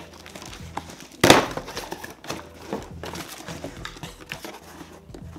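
Cardboard shipping box being pulled open by hand: one short, loud burst of cardboard noise about a second in, then light rustling and crinkling of the flaps and packing as the box is opened.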